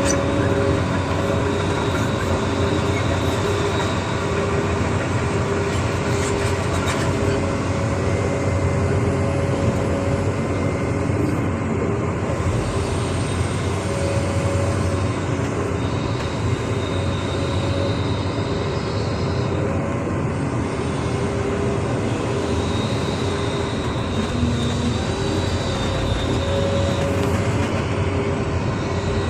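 Excavator's diesel engine running steadily under load, with a high whine that comes and goes several times.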